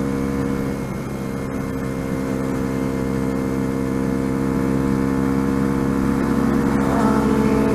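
Sinnis Apache 125 motorcycle engine running at a steady cruising speed. Near the end a second motorcycle's engine note joins and the sound grows a little louder.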